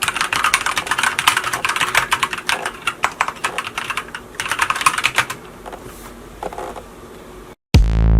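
Typing on a Micronics WARP WK3 tenkeyless mechanical keyboard with Manic brown switches: a fast run of keystroke clicks, a short pause, another quick flurry, then scattered single strokes. Electronic music with a beat cuts in near the end.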